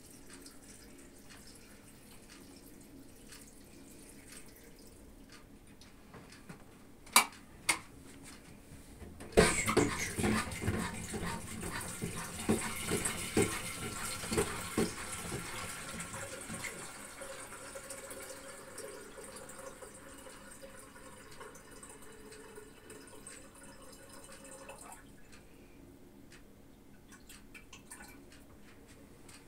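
Kitchen tap running water into a kettle for about fifteen seconds, splashing hardest at first, then settling until it is turned off abruptly; two sharp clicks come a few seconds before the water starts.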